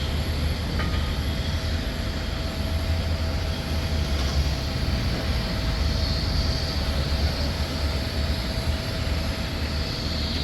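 Steady jet aircraft noise on an airport apron: a constant low rumble with a faint steady whine and hiss over it.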